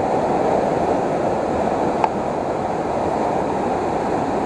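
Anchukuzhi waterfall in flood after heavy rain: a steady, loud rush of muddy, swollen water pouring over rocks. A brief click about two seconds in.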